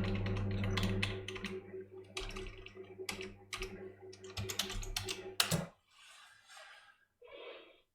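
Computer keyboard typing in quick clicks over the steady hum of a roller-blind motor, which cuts off suddenly about five and a half seconds in as the stop command takes effect.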